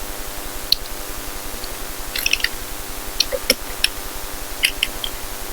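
Light clicks and taps of a small vintage metal cabinet lock's parts being handled and pressed to snap together, in a few scattered groups. A steady low hum runs underneath.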